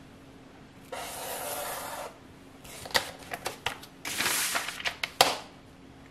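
Felt-tip marker drawn along a metal ruler across a board in one scratchy stroke about a second long, then a run of clicks and knocks as the ruler is lifted and repositioned, a second scraping stretch of a little under a second, and one sharp knock near the end.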